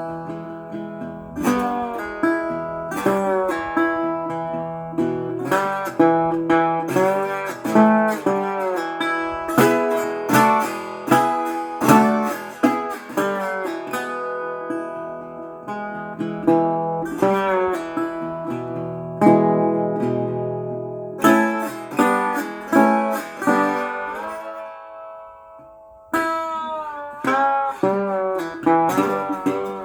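Acoustic guitar being picked, single notes and chords ringing out in a reverberant room recorded on a phone. Near the end one chord is left to ring and fade for several seconds before the picking starts again.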